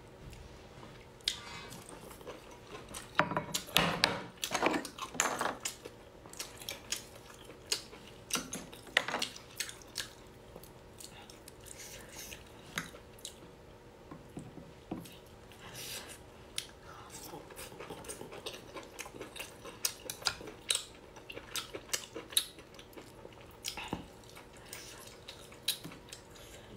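Close-miked eating sounds: wet chewing and biting of abalone dipped in chilli sauce, with sharp mouth clicks and crackles, loudest in a cluster about three to six seconds in. Light clinks and handling sounds come from a glass dipping bowl.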